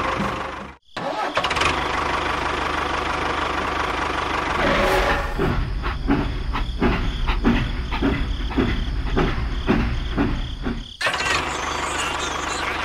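Tractor engine running, with a regular chug of about two beats a second through the middle. The sound drops out briefly about a second in and cuts off sharply near the end.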